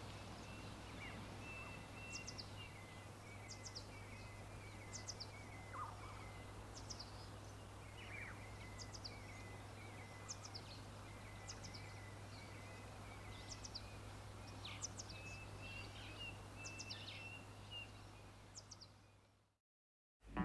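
Faint outdoor ambience with birds calling: one repeats a short, high call about every second and a half over thinner, wavering notes, against a low steady hum. It fades out near the end.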